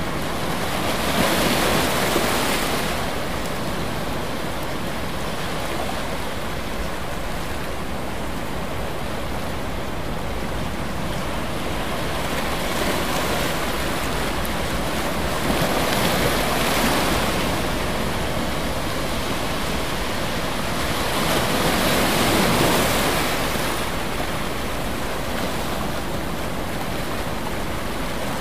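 Ocean surf: a steady rush of water that swells louder three times as waves break and wash in.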